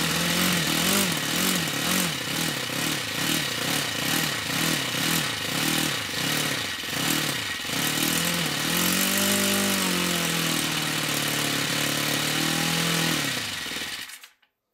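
OS FS-60 four-stroke glow model aircraft engine running on new main bearings and turning a 12x6 nylon propeller. Its speed wavers up and down rapidly and repeatedly, then settles into a steady run after about eight seconds, and it stops near the end.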